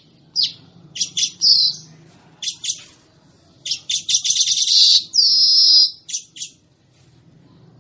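Manyar (weaver bird) singing: a string of sharp chips and short buzzy notes, building about four seconds in to a long, fast buzzing rattle followed by a falling wheezy note, then a few last chips.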